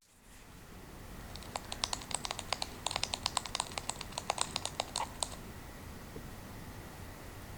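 A rapid, irregular run of light clicks and taps, like typing on a keyboard, lasting about four seconds and starting a second or so in.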